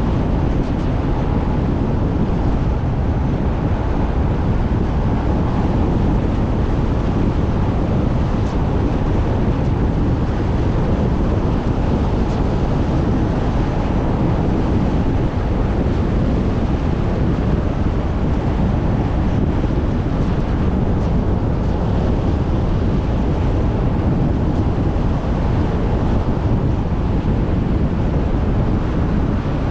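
A car driving steadily on a paved road: a low, even rush of tyre and wind noise.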